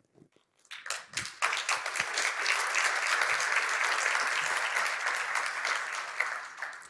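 Audience applauding: a few scattered claps that build within about a second into full applause, which then fades away near the end.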